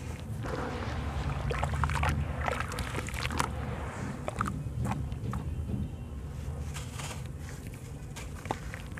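Crumbling sand-cement clumps falling from hands into a basin of water, then hands churning the water and squeezing a wet sand ball: crunching, crackling and splashing, busiest in the first half, with one sharp click near the end.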